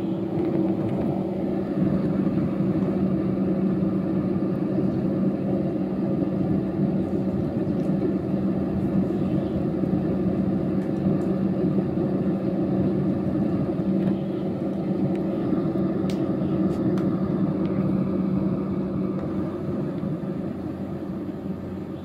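Small electric fan motor inside a homemade cardboard mini air conditioner running, a steady hum with a rush of blown air; it fades somewhat near the end.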